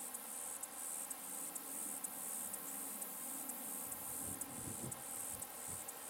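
A high-pitched insect chorus: a steady shrill buzz broken by brief dropouts, with a few low rumbles about four seconds in.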